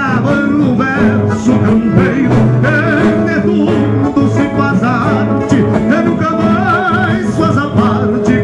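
Live Brazilian gaúcho folk music: a man singing over acoustic guitar and accordion, with a steady bass line.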